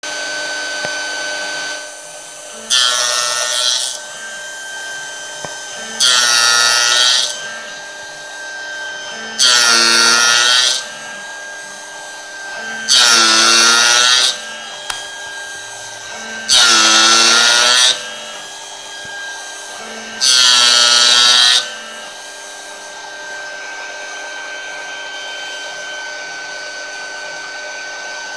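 CNC spindle whining steadily while a 0.8 module gear cutter cuts tooth slots in a brass gear blank: six loud cutting passes, each about a second and a half long, come about every three and a half seconds. The passes stop about three quarters of the way through.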